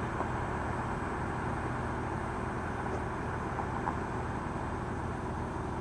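Car engine idling: a steady low hum with a faint hiss over it.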